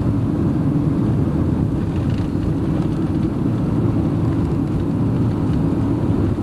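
Steady noise of a moving car, engine and tyres on the road, heard from inside the cabin as an even low drone.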